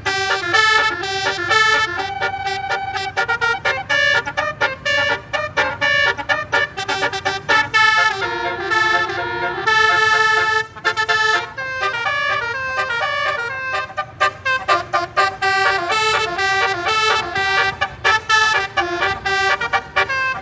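Basuri melodic bus horn playing a tune: quick runs of notes stepping up and down, with a few longer held notes.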